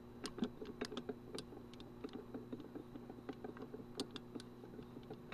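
Small air compressor's aluminum piston rocked by hand on its connecting rod, giving light, irregular metal clicks, several a second. The play is in the damaged wrist pin.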